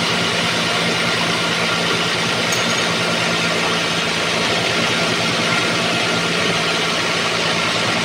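Large band sawmill running steadily: a constant low drone with a broad hiss over it, unchanging throughout.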